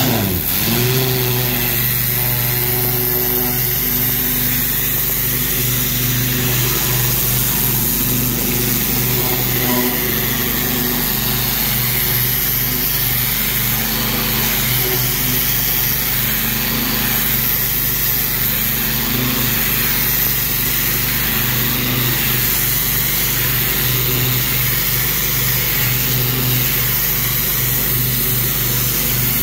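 Pressure washer's small engine running steadily at full throttle, with the high-pressure spray from the wand hissing against a brick wall.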